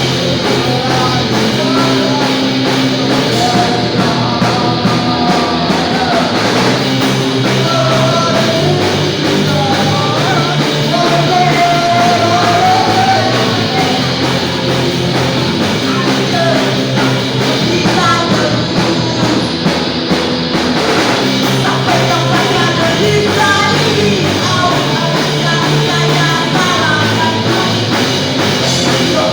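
Punk rock song played by a band, with a singer carrying the melody over dense, steady band sound.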